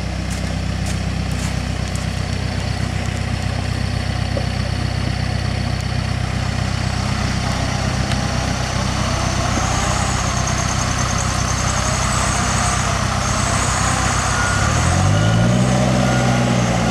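Heavy diesel engines of a backhoe loader and loaded trucks running steadily. About 15 s in, one engine revs up and holds the higher speed, and near the end a steady beeping starts, about one beep a second, typical of a reversing alarm.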